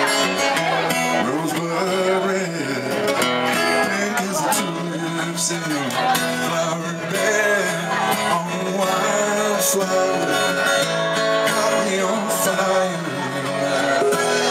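Live rock band playing: electric guitar and bass over a drum kit.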